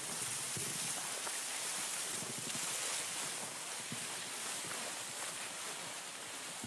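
Steady rushing outdoor ambience, a hiss-like noise with no distinct events, easing off slightly near the end.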